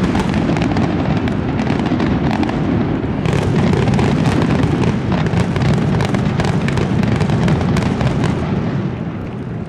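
Closing barrage of an aerial fireworks display: shells bursting in a continuous rumble with many sharp cracks over it, dying away near the end.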